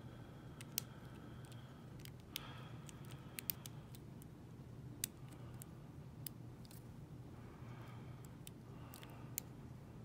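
Faint, irregular metallic ticks and clicks from a thin home-made lock pick working the pins inside an Abus oval padlock, with a tension wrench in the keyway. A low steady hum runs underneath.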